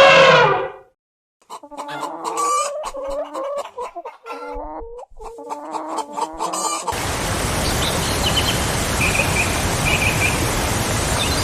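Chicken clucking in a run of short, choppy calls for several seconds. About seven seconds in, it gives way to a steady rushing noise with a few faint high bird chirps.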